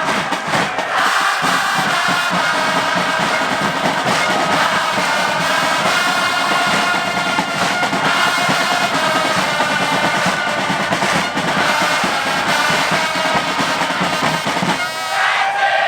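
Stadium crowd of football supporters chanting in unison to a steady beat of bass drums.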